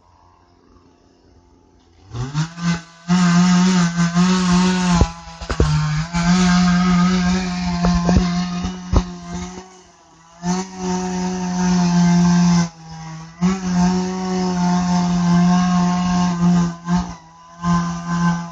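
Chainsaw revved up about two seconds in and held near full throttle while cutting into a tree trunk, its pitch wavering under load and dropping off briefly twice near the middle.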